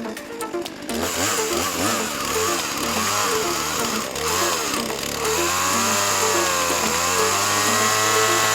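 Chainsaw engine revving up and down several times, then held at high revs from about five seconds in, over background music.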